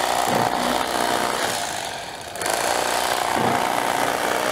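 Electric carving knife running as it cuts through a po' boy sandwich, a steady motor buzz that dips briefly about two seconds in.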